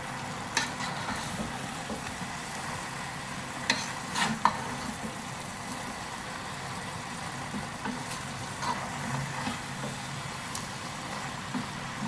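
Wooden spatula gently stirring avial, thick vegetables in grated coconut and curd, in a nonstick pan, with a few scrapes and knocks against the pan, the loudest about four seconds in. A steady sizzle from the hot pan runs underneath.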